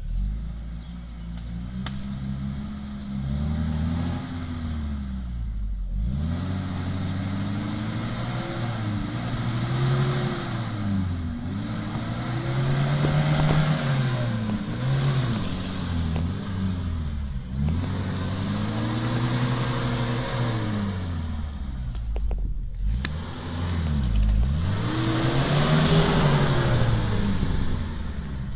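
Opel Frontera A Sport 4x4's engine revved hard again and again under load as it works up a muddy slope. The pitch rises and falls every few seconds, with short drops where the throttle comes off.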